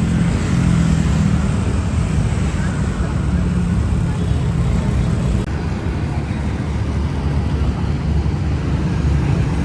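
Steady low rumble of outdoor noise without distinct bangs.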